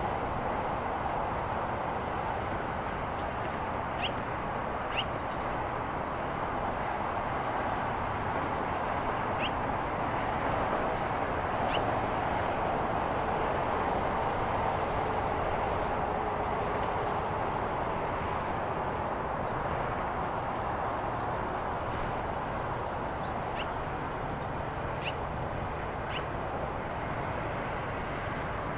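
Steady rushing outdoor background noise with short, sharp ticks scattered through it: two close together about four seconds in, two more a few seconds later, and a cluster of three near the end.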